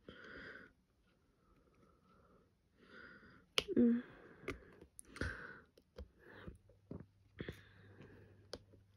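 Small sharp clicks and taps of a diamond-painting drill pen picking up resin drills from a plastic tray and pressing them onto the canvas, scattered irregularly, with soft breaths in between.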